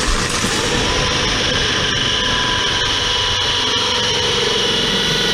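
Power drill driving a 2 1/8-inch bi-metal hole saw through a hardened-steel exterior door, a steady cutting sound with high, steady squealing tones.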